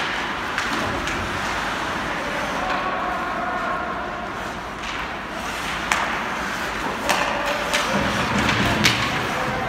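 Ice hockey game sound in a rink: a steady murmur of crowd and players, with several sharp knocks and thuds from sticks, puck and boards, mostly in the second half.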